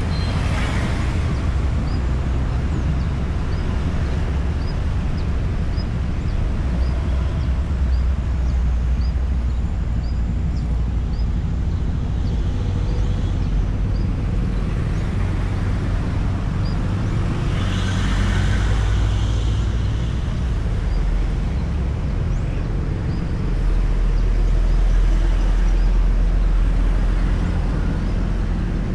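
Steady highway traffic rumble, with vehicles passing close by, one right at the start and another about eighteen seconds in, and the low rumble swelling louder for a few seconds near the end as a heavier vehicle goes by.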